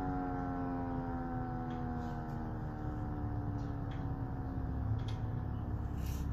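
Darley Model 2 outdoor warning siren winding down at the end of a tornado siren test: a chord of tones slowly falling in pitch and fading. A low rumble and a few faint clicks sit underneath.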